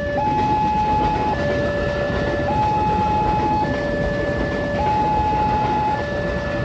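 Railway level-crossing warning siren alternating between a high and a low tone, each held about a second, over the steady noise of a passing train.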